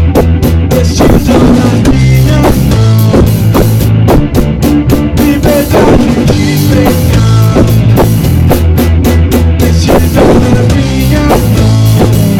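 Rock band playing a song: drum kit beating steadily under sustained low bass and guitar. The recording is loud and of poor quality.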